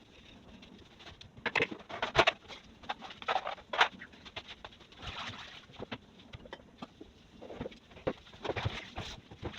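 Irregular knocks and clatter of objects being handled, with a brief rubbing sound about five seconds in.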